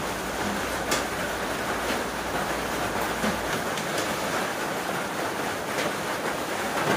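A steady, even rushing noise, with a few light clinks of a spoon against a metal cooking pot as canned milk is poured in and stirred.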